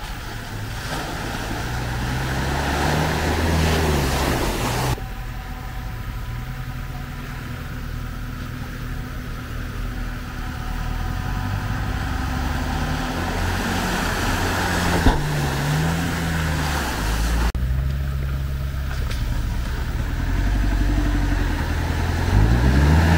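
Off-road 4x4 engines revving as the vehicles crawl through rough ground, the engine note rising and falling. The sound changes abruptly about five seconds in and again past the middle, as a different vehicle is heard.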